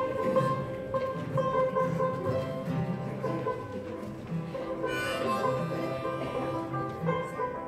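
Acoustic bluegrass band playing live: strummed acoustic guitars and mandolin, with a harmonica holding long steady notes over them.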